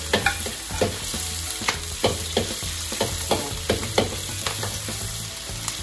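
Prawns stir-frying in hot lard in a wok, making a steady sizzle. A metal spatula scrapes and knocks against the wok every half second or so.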